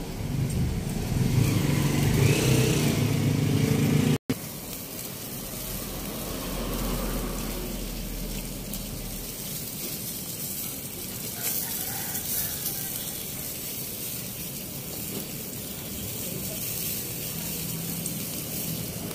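Salmon fillets sizzling on a grill over charcoal: a steady hiss. For the first four seconds a louder low rumble lies under it, then it stops abruptly.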